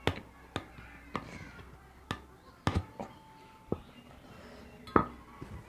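Watch box and its contents being handled and unpacked: a series of about seven sharp taps and knocks, spaced irregularly, the loudest about five seconds in.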